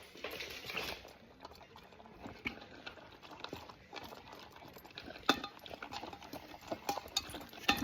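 Boykin spaniel eating from a bowl once released: soft, irregular mouth and chewing noises, with a few sharper clicks against the bowl, one about five seconds in and another near the end.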